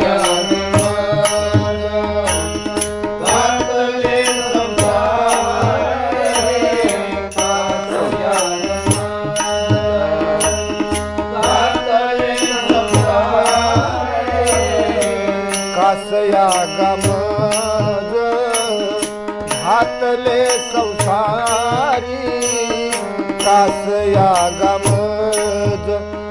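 Devotional abhang music: harmonium melody over a low drone, with tabla strokes and a steady high ticking keeping time.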